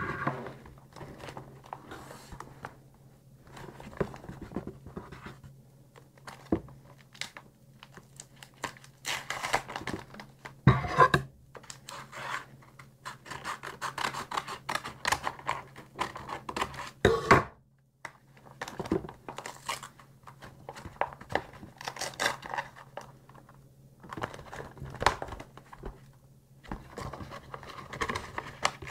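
Packaging being handled and torn open by hand: irregular tearing, scraping and crinkling, with sharper tears about eleven and seventeen seconds in. A steady low hum runs underneath.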